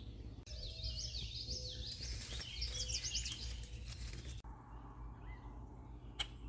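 Songbirds singing, a rapid jumble of high chirps and trills for the first few seconds, thinning out after that, over a steady low rumble. A single sharp click near the end.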